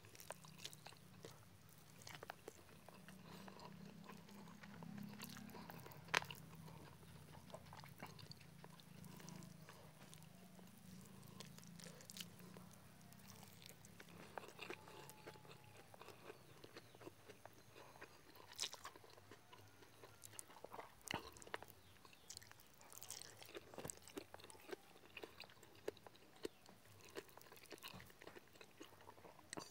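Faint, close-miked eating sounds: chewing, with scattered wet mouth clicks and smacks, from eating rice, fried chicken and soft vegetables by hand. A low hum sits under the first half.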